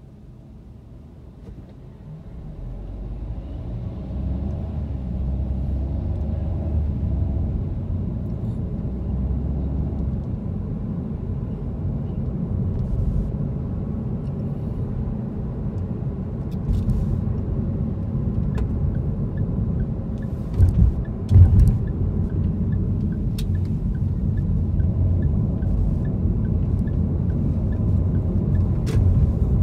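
Car interior driving noise: the car pulls away from a stop and the low rumble of engine and tyres builds over the first few seconds, then runs steadily. A couple of heavy thumps come about two-thirds of the way through.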